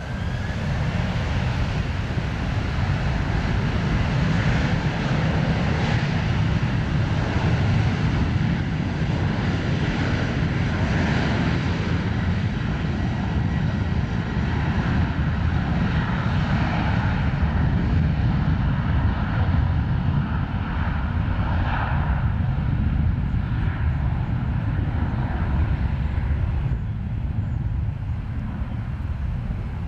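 Boeing 737 jet airliner's engines at takeoff power during the takeoff roll: a steady, loud jet noise heavy in the low end, a little quieter in the last few seconds.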